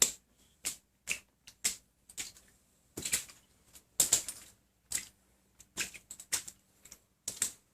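A series of short, sharp clicks or taps, roughly two a second, uneven in loudness.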